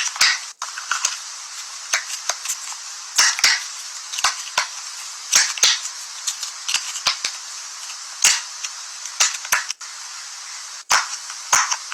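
Irregular sharp clicks and snaps of small hard plastic pieces, typical of a fidget toy being handled, over a steady hiss.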